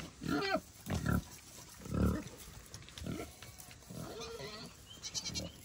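Vietnamese potbellied pig grunting while it eats in the hay: three short, low grunts in the first two seconds or so, the loudest about two seconds in, then softer grunting.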